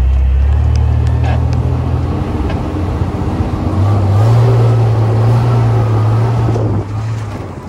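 Four-wheel drive's engine running under load as it drives over soft beach sand, a steady low drone; the engine note rises a little about four seconds in and eases off near the end.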